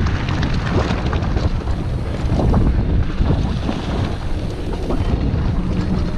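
Mountain bike rolling over a gravel track: tyres crunching on loose stones, with frequent small knocks and rattles from the bike, under loud wind rush on the microphone.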